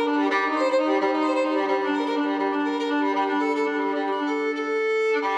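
Background music of bowed strings playing long held notes.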